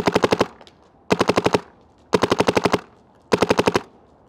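Empire Mini GS paintball marker with its stock barrel firing four quick strings of shots, each about half a second long and about six to eight shots, with short pauses between them.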